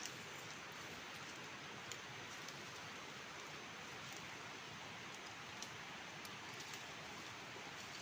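Steady outdoor background hiss with a few faint, soft ticks scattered through it.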